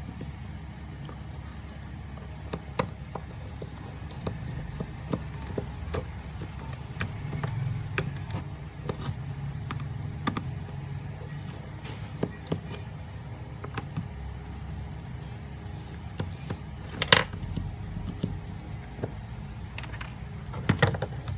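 Small sharp clicks and taps of a precision screwdriver working the screws of a Nokia 107 phone's plastic back housing as the phone is taken apart. There is a louder click about three-quarters of the way through and a quick cluster near the end, over a steady low background hum.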